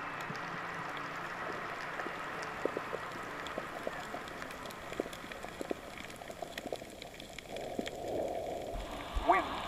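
Underwater reef ambience picked up by a dive camera: a steady hiss full of scattered crackles and clicks. Near the end a few short calls glide up and down in pitch.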